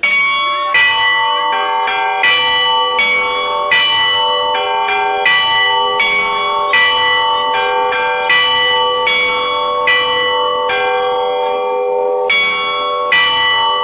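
Russian Orthodox church bells rung by hand by a child improvising a tune. Several bells of different pitches are struck one after another, about three strikes every two seconds, and each rings on into the next.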